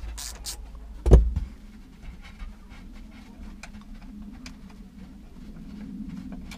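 Hand-work noises from a ratchet and the rear seat fittings: a loud knock with a low thud about a second in, then light scattered clicks and rustles as the plastic trim and carpet are handled, over a low steady hum.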